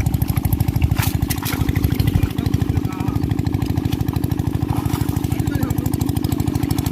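A small engine running steadily, with a fast, even low thudding.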